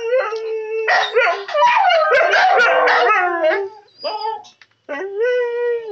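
Several street dogs howling and yelping, their long drawn-out howls overlapping with short yelping cries. The calls crowd together in the first half, thin out to a few short cries, and one long howl comes near the end.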